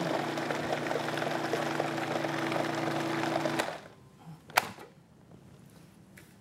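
Electric food processor running steadily with a low motor hum as it purées avocado, carob powder and maple syrup into pudding, then switching off abruptly a little over halfway through. A single sharp knock follows about a second later.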